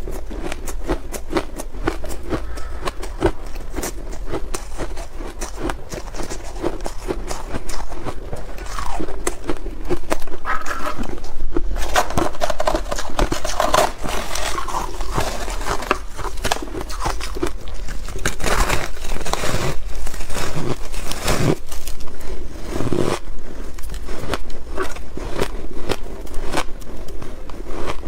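Close-up mouth sounds of ice being bitten and chewed: rapid, dense crunching and crackling of hard ice breaking between the teeth.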